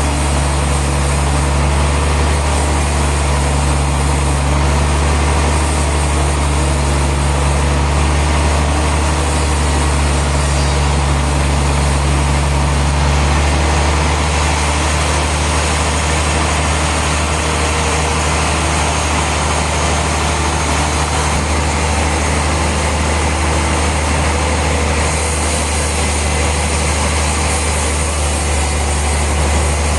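Heavy sawmill machinery running steadily: a loud low engine hum under a constant wider noise. Part of the low hum drops away about halfway through.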